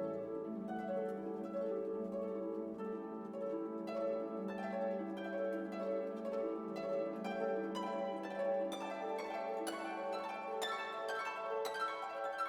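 Instrumental background music: quick plucked string notes over a held low note, growing busier toward the end.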